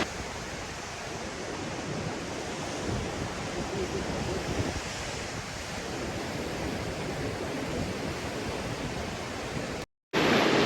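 Steady ocean surf washing with wind noise on the microphone. The sound cuts out briefly near the end.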